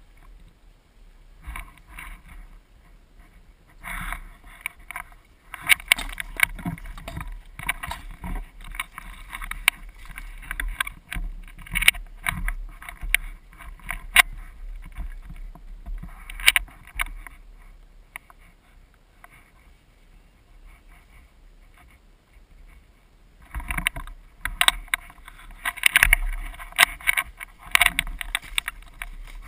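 Handling noise on a rifle-mounted camera: irregular rustling and scattered sharp knocks as the player moves with the airsoft rifle, with some wind on the microphone. The sound drops away for a few seconds partway through, then picks up again near the end.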